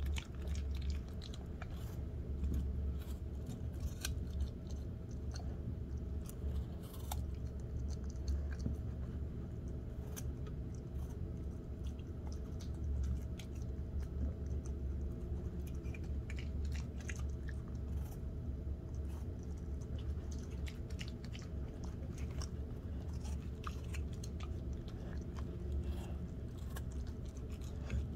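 A Samoyed dog biting and chewing chunks of raw apple, irregular crisp crunches throughout, over a steady low hum.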